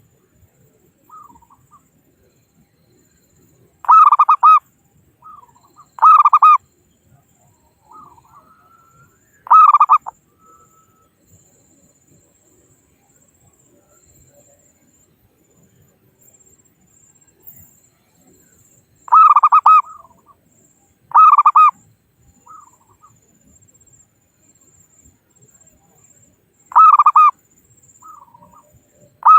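Zebra dove (perkutut) cooing: seven loud, rapid staccato coo phrases, each under a second, coming singly or in close pairs with long gaps between. Softer short coos fall between them. It is a male's calling to rivals.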